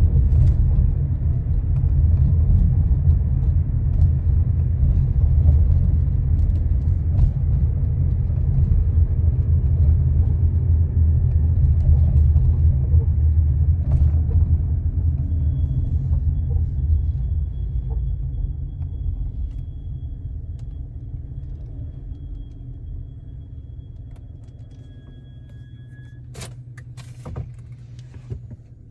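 Chevy Colorado pickup making a heavy low rumble that the owner finds odd. It stays loud for about fifteen seconds, then fades steadily, and a few sharp clicks come near the end.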